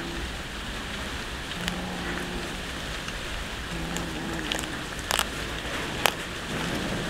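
Cats chewing raw fish close up: a steady wet crackling of chewing, with sharp crunches of fish bone, a cluster about five seconds in and a louder one a second later.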